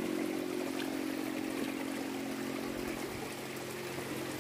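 Forest stream running, an even hiss of water, under a steady low mechanical hum that weakens after the first second or so.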